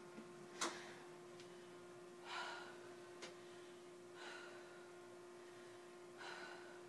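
A woman's heavy, exerted breathing mid-workout, with a breath about every two seconds as she hangs from a pull-up bar between toes-to-bar reps. A sharp slap about half a second in as her hands catch the bar, and a fainter tap a few seconds later.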